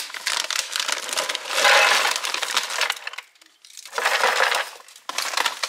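Dry petit-beurre biscuits pouring from their packet into a clear plastic canister, clattering against the plastic and each other, loudest in the middle of the pour. After a half-second pause about three seconds in, two shorter bursts of clatter follow as the biscuits are settled in the canister.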